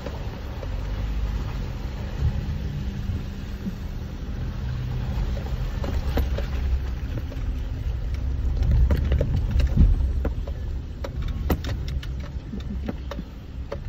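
Suzuki Jimny driving slowly over a rough rocky trail, heard from inside the cabin: a steady low engine drone that swells about two-thirds of the way through, with several knocks and rattles from the bumpy ground in the second half.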